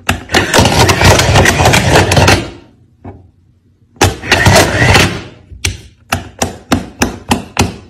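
Wooden multi-switch 'useless box': metal toggle switches clicking as they are flipped, and the box's mechanism whirring and clattering as its acrylic arms lift the lid and knock the switches back. Near the end comes a quick run of about eight sharp switch clicks, roughly four a second.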